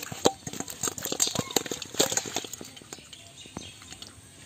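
Live climbing perch flapping in a stainless steel bowl: a rapid, irregular run of sharp taps and clinks as their bodies and tails slap the wet metal, thinning out after about two and a half seconds.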